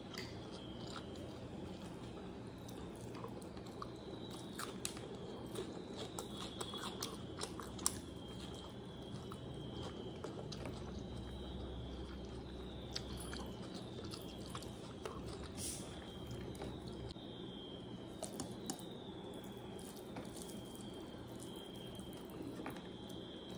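Close-up chewing of a mouthful of chicken biryani, wet mouth sounds with scattered small crunches and clicks. A faint high chirp repeats every second or two in the background.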